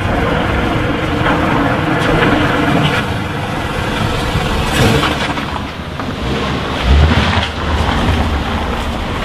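A car driving by, its engine and road noise swelling to a peak about five seconds in, followed by a heavy low thump about two seconds later.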